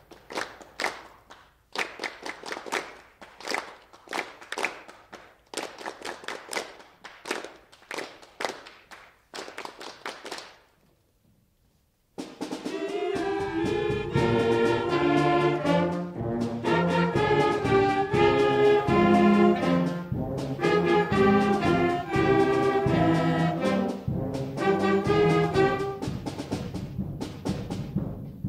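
School concert band playing: for about the first ten seconds only short percussion hits, which die away into a brief pause. About twelve seconds in the full band comes in loudly, with brass and woodwinds playing a rhythmic passage of chords.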